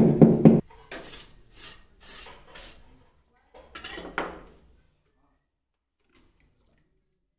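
A brief steady pitched sound cut off about half a second in, followed by several short scraping strokes of tile and trowel against cement mortar and tile; the sound stops about five seconds in.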